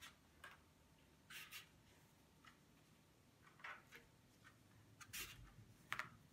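Faint scraping strokes of a hand-held vegetable peeler shaving the skin off a raw apple, a short stroke every second or so.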